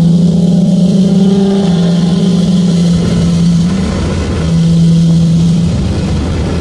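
Infiniti G35 coupe's VQ35DE V6 droning steadily inside the cabin while pulling hard at highway speed. It eases off briefly about four seconds in, then pulls again.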